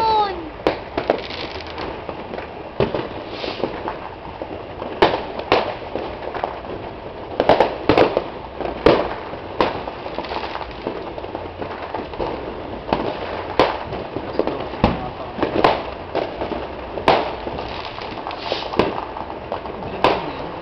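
Many fireworks and firecrackers going off at once: irregular sharp bangs and pops, some louder than others, over a steady crackling din.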